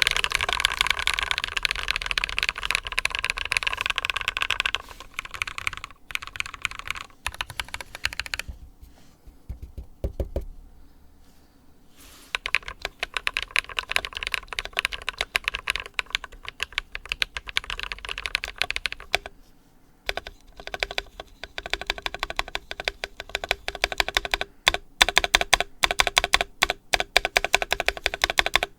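Typing on a mechanical keyboard with lubed Glorious Panda tactile switches, in an ID80 board with plate foam and foam under the PCB, capped with Cherry-profile PBT keycaps. The keystrokes come in fast runs. Around a third of the way through there is a lull with only a few strikes, and typing picks up again after it.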